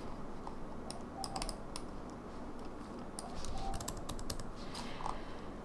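Typing on a computer keyboard: short runs of key clicks with pauses between.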